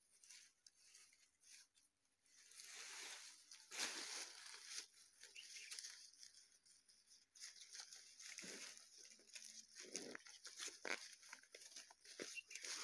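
Faint rustling and crackling of leafy green twigs being gathered and handled, in irregular bursts.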